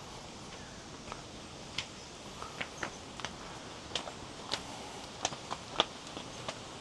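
Footsteps on a path: irregular, sharp steps, roughly two a second at times, over a steady background hiss.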